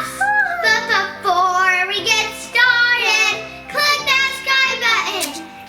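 A child singing a melody over a musical backing.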